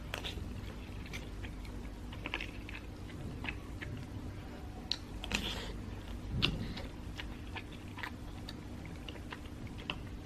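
A person chewing a mouthful of rice close to the microphone: soft irregular mouth clicks and small smacks over a faint steady hum.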